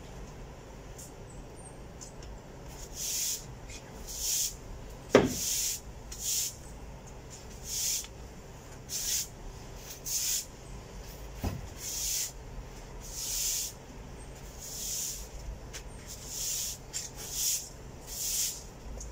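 A broom sweeping over paving: about a dozen short, scratchy strokes at uneven intervals roughly a second apart. About five seconds in there is one louder sharp sound whose pitch drops quickly.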